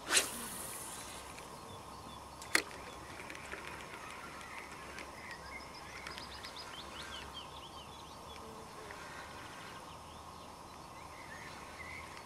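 A sudden rushing, splash-like burst at the very start that dies away within a second, then a single sharp click about two and a half seconds in. After that, small birds chirp in short repeated calls over quiet outdoor background.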